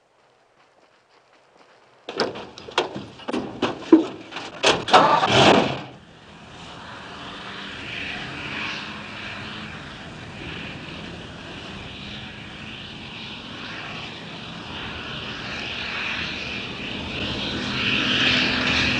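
Pickup truck driving off fast: a burst of loud, sharp, uneven noises for about four seconds, then a steady engine-and-tyre noise on a dirt road that grows louder near the end.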